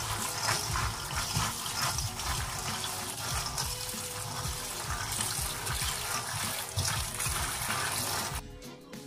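Tap water running steadily onto green peas in an aluminium colander in a stainless steel sink while hands stir and rub the peas to wash them. The rush of water cuts off suddenly near the end.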